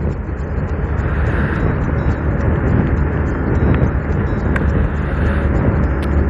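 Steady wind rush and road noise on the microphone of a Bajaj Pulsar 150 motorcycle riding at highway speed.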